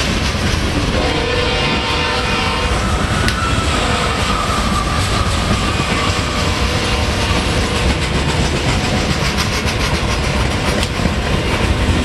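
Freight cars of a Canadian Pacific train rolling steadily past at a grade crossing: a continuous rumble with the clickety-clack of wheels over the rail joints. A faint high tone comes in from about four to six seconds in.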